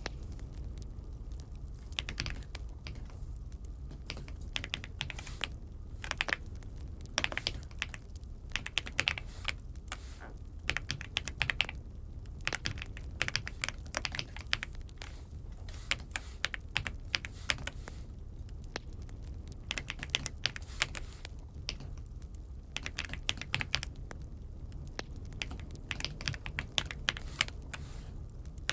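Typing on an Aula F75 75% mechanical keyboard: irregular runs of key clacks with short pauses between them, over a steady low hum.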